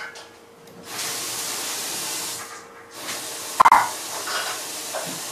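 Kitchen tap running into the sink in two spells while dishes are washed, with a short dish clatter partway through the second spell.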